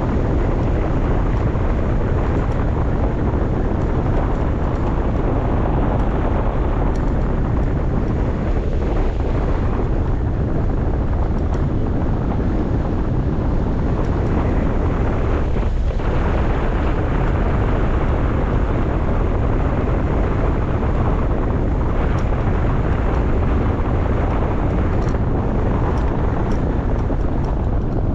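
Steady, heavy wind rushing over the microphone, with no engine note in it.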